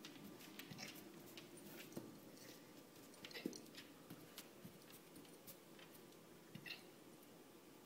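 Newfoundland puppy hiccupping: a series of faint, short hiccups, the clearest about three and a half seconds in.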